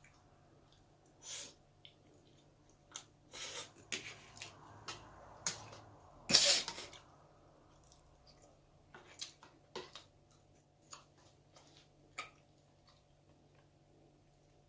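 Close-miked eating sounds: scattered small clicks and short bursts of chewing or slurping, with one louder, sharp breathy burst a little past six seconds in.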